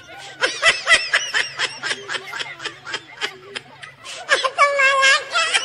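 Laughter: a quick run of short chuckles, then a long drawn-out laugh about four seconds in.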